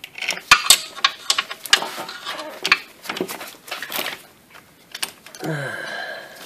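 Irregular metallic clicks and clinks of a steel bolt and fingers working against the A/C compressor's mounting bracket while the bolt is being fished into its hole, with a short falling tone near the end.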